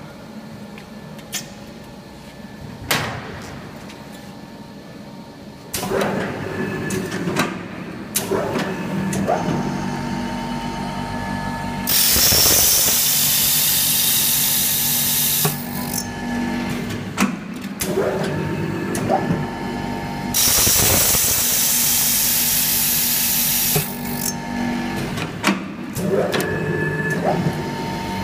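An electric drill with a diamond drill bit starts about six seconds in and runs steadily. Twice, for three to four seconds each, the bit grinds into glass with a loud, harsh hiss.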